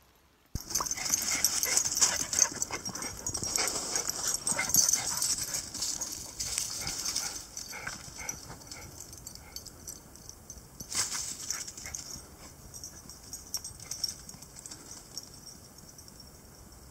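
A small dog scampering through dry fallen leaves, the leaves crunching and rustling in quick, uneven steps. It is loudest at first and grows fainter toward the end, with one sharper rustle about two-thirds of the way in.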